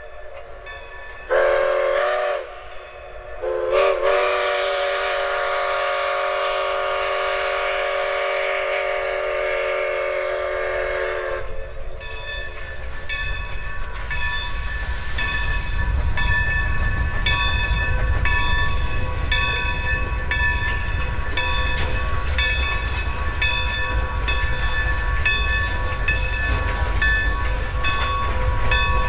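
1924 Baldwin steam locomotive Santa Maria Valley #205 sounding its steam whistle for a grade crossing: a short blast, then a long one of about eight seconds. Several tones sound at once and dip briefly in pitch as each blast opens. After the whistle stops a bell rings steadily over the low rumble of the train rolling by.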